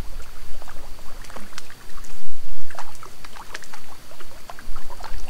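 Hooked brook trout thrashing at the water surface, making a run of short, irregular splashes.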